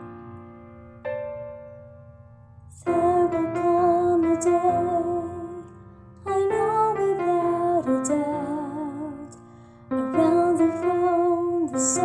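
Piano accompaniment playing alone at first, then about three seconds in a female soprano voice comes in singing the soprano line of an SATB choral arrangement over the piano, with vibrato on held notes. The voice drops out briefly twice, leaving the piano.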